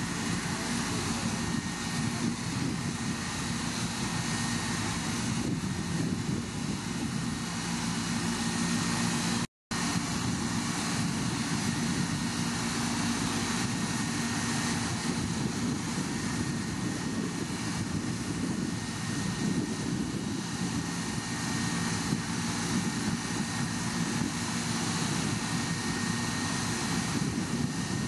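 Steady machinery drone with a constant low hum, from fish plant equipment running. It cuts out for an instant about ten seconds in.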